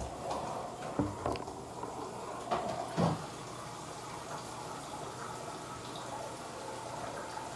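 A few light knocks and clicks in the first three seconds, then a steady background hiss.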